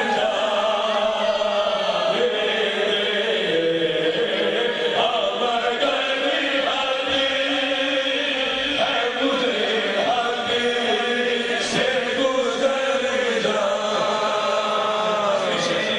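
A man chanting a devotional kalam (naat) in long held, melismatic lines through a microphone, with a steady hum of other voices held underneath.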